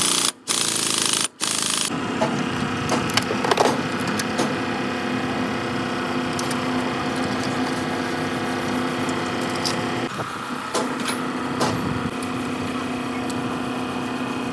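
A machine runs with a steady hum while tools scrape and click against metal, with a short burst of hiss just after the start.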